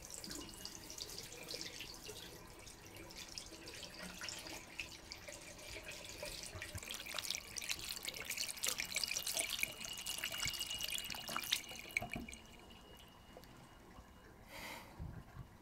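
Water running from a bathroom tap and splashing into the sink. It grows louder, then stops about twelve seconds in.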